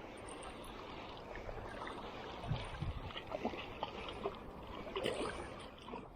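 Shallow surf water sloshing and lapping, with several brief sharp splashes about halfway through and again near the end.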